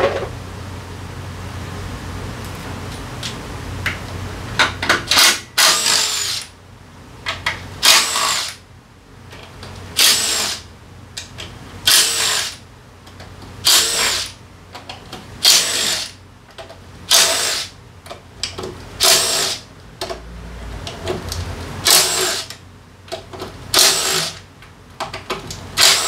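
Cordless power driver spinning in about a dozen short bursts, roughly every two seconds, starting about five seconds in: the bolts of a Honda Forza 350's drivetrain cover being run out one after another.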